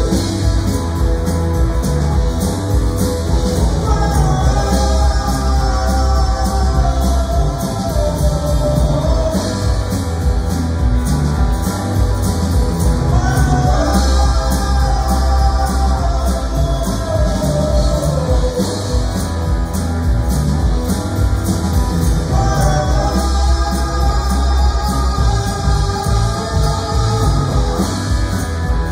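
Live rock band playing a song: drums and bass under electric and acoustic guitars and congas, with a melody line rising and falling over it in long phrases.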